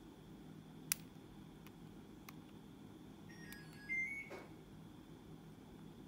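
Small metallic clicks from a disc detainer pick turning the discs inside a disc detainer padlock: a sharp click about a second in, a few faint ticks, and a short squeaky metal scrape with a click about four seconds in, the loudest moment. A faint steady hum lies underneath.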